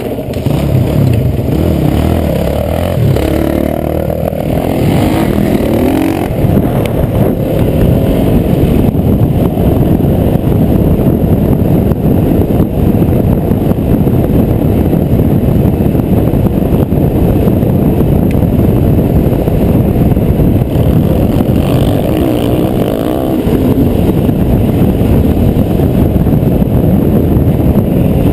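Enduro dirt bike's engine running hard while ridden along a dirt track, heard on board the bike. The revs rise and fall a few seconds in.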